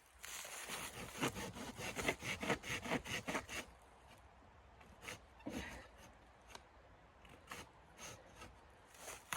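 Wood being worked with a hand tool: a run of quick rasping strokes for about three and a half seconds, then scattered light knocks and clicks.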